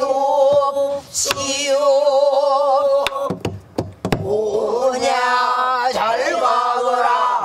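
Mixed group of men and women singing pansori in unison, with long held, wavering notes, to buk barrel-drum accompaniment. The singing breaks off about three seconds in for a few sharp drum knocks, then starts again.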